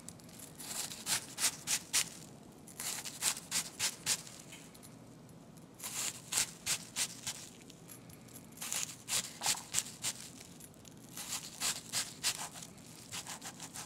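Kitchen knife slicing an onion on a cutting board: runs of quick, crisp strokes, about four a second, broken by short pauses.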